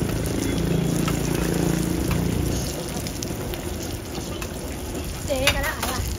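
Food-stall cooking noise: a steady mechanical hum for the first two or three seconds, then a hiss like food frying or water boiling, with a brief voice about five and a half seconds in.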